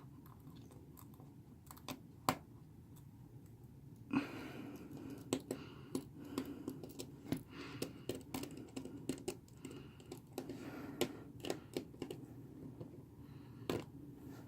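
Faint, irregular light clicks and taps of a small Phillips screwdriver working the tiny screws out of a smartphone's frame, coming more often from about four seconds in.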